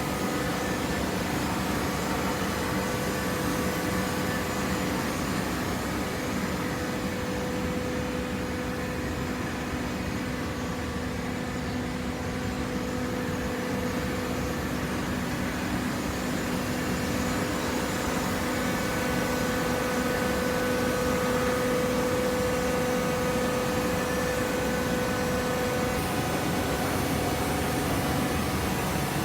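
A baling press running: a steady machine hum with a few held tones, a little louder in the second half.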